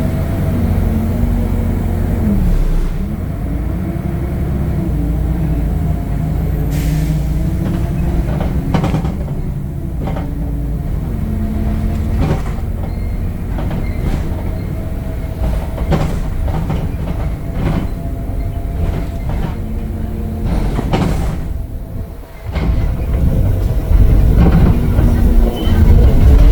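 Temsa Avenue LF 12 city bus under way, its DAF Euro 5 diesel and ZF automatic gearbox running with the engine pitch rising and stepping down as it pulls and shifts, amid frequent knocks and rattles from the bus. The sound drops briefly about 22 seconds in, then runs louder.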